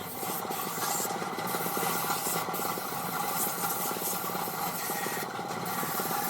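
A machine running steadily with a fast, even rasping pulse.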